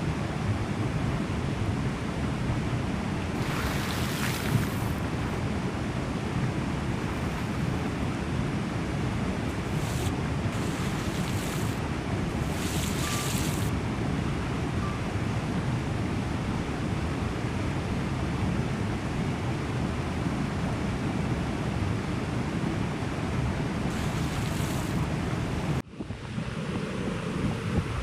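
Shallow forest stream rushing steadily over rocks and small cascades. The sound changes briefly about 26 seconds in, then the water continues.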